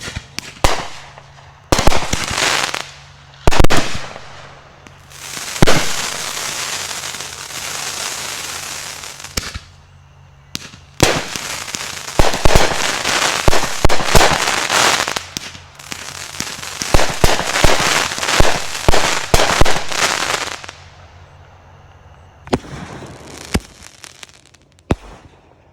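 Consumer fireworks going off: several sharp bangs, then a long hissing stretch and a dense run of crackling with rapid pops, thinning out to a few last pops near the end.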